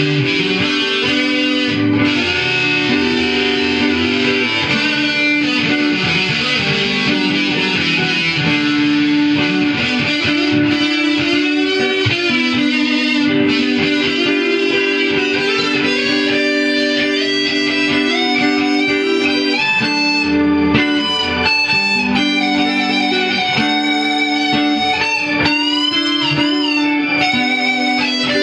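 Fender Mexican-made Stratocaster electric guitar played through effects: a rock lead line with many string bends over a repeating looped rhythm guitar part.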